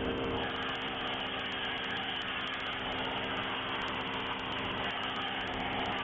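Polyurethane foam machine running with a steady hiss.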